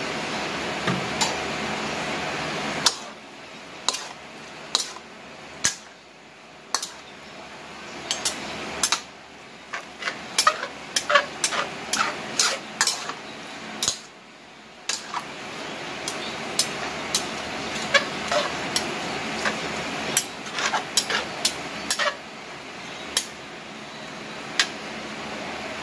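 Metal spatula clanking and scraping against an aluminium wok while rice noodles are tossed and stirred, in irregular sharp knocks, some single and some in quick runs.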